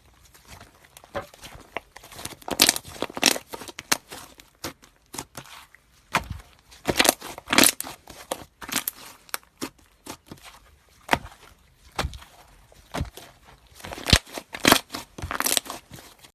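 Slime being squeezed, stretched and pressed by hand, giving irregular crackling and popping, with louder clusters of pops a few seconds apart.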